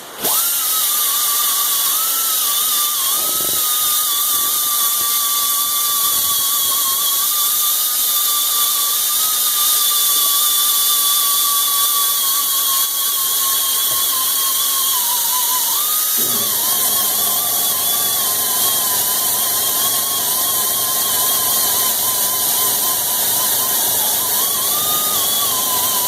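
Air grinder running at speed, polishing a flat plate: a steady high whine over a hiss of air, its pitch sagging briefly now and then as it is pressed into the work. About sixteen seconds in a rougher, lower grinding sound joins it.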